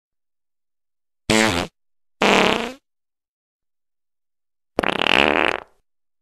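Three fart sounds: two short ones about a second apart, then a longer one near the end, each starting and stopping abruptly with dead silence between.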